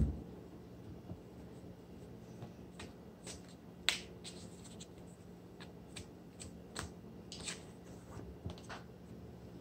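Tarot deck being shuffled by hand: scattered faint clicks and snaps of cards flicking against each other, with a knock at the very start.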